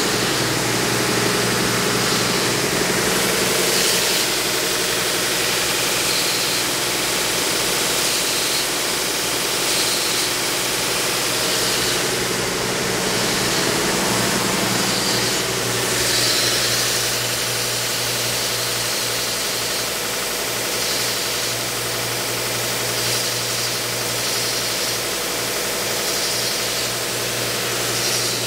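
SCMI Uno 36-inch wide belt sander running with its sanding belt motor on, a steady mechanical hum. Over it is the hiss of the compressed air from its air belt tracking and the abrasive-cleaning air jet, swelling and fading every second or two.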